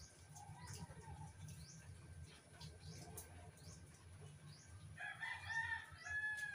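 A rooster crowing once near the end, over small birds chirping in short high notes.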